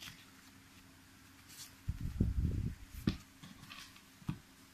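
Handling noise from a small padded, zippered fabric tool case: soft bumps and rubbing about two seconds in as the lid is folded shut, with a sharp knock about three seconds in and another near the end.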